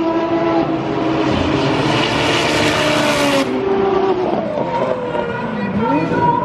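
Race car engine running hard at high revs, its pitch falling and climbing as the car brakes, shifts and accelerates. In the middle, a loud rushing hiss lasts about two seconds and cuts off sharply.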